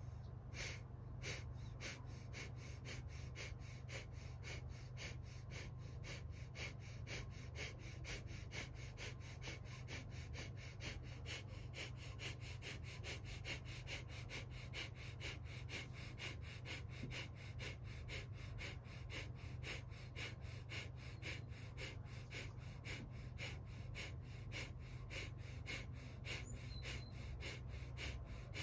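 Breath of fire: a woman's rapid, forceful exhalations through the nose, each one a sharp puff driven by a quick, hard pull of the belly toward the spine. They come in an even rhythm of about three a second.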